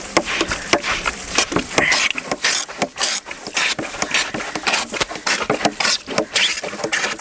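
Handheld manual bilge pump worked hard and fast. The plastic plunger rasps and clacks with each quick stroke while water spurts from the outlet and splashes.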